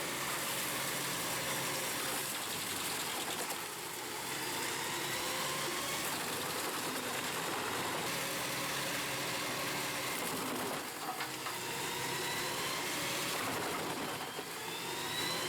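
Truck-mounted industrial drum wood chipper running steadily, its engine and drum making a continuous mechanical hum that dips briefly a few times.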